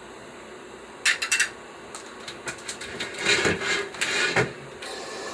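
Short bursts of rasping and clicking as black pepper is added to the cooking pot: a few quick ones about a second in, then a longer run between about two and a half and four and a half seconds in.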